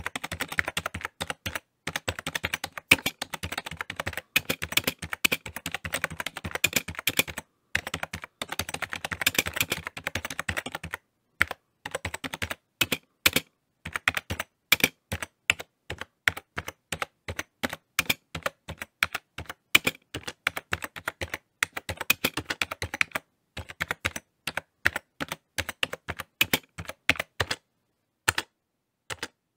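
Rapid keypress clicks of typing on a phone's on-screen keyboard, coming in dense runs broken by a few short pauses.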